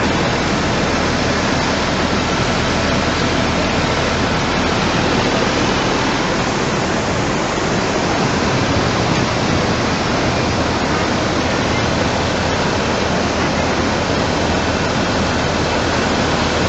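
Floodwater rushing past in a steady, loud, unbroken wash of noise.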